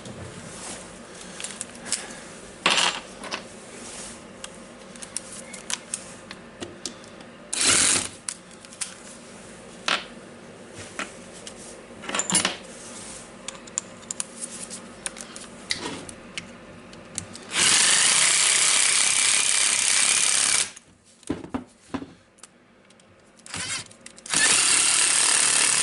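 Scattered clicks and knocks of parts and tools being handled, then a power driver run in two bursts of about three and two seconds, driving in two screws on an angle grinder's housing.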